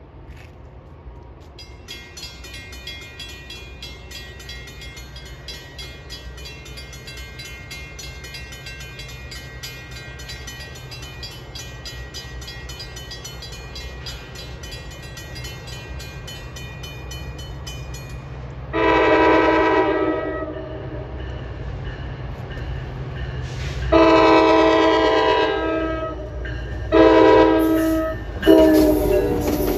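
A grade-crossing bell rings rapidly and steadily, then stops about 18 seconds in. An approaching NJ Transit diesel locomotive then sounds its horn in the long-long-short-long crossing signal over a low, growing rumble. The last long blast runs as the locomotive arrives.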